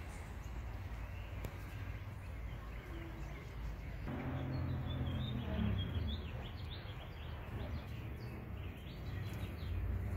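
Outdoor ambience: birds chirping over a low steady rumble, the chirps coming thickly from about four seconds in.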